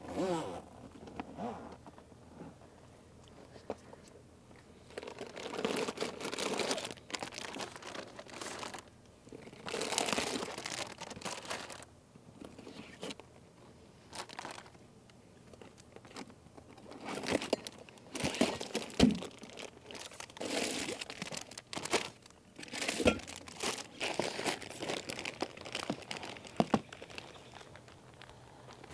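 Plastic zip-lock bags crinkling as food packs are handled and lifted out of a Yeti Hopper 18 soft cooler, along with its stiff zipper being dragged open. Irregular rustling comes and goes, with a couple of sharp knocks in the second half.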